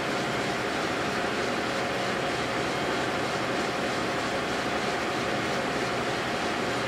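South Bend 10L metal lathe running at a steady speed, its motor and belt drive whirring evenly while the spinning chuck turns a broken compound-screw shaft and a tool bit faces off its end.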